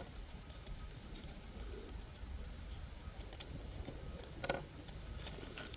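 Crickets trilling steadily in one high, unbroken tone, with a few faint clicks, one at the very start and one about four and a half seconds in.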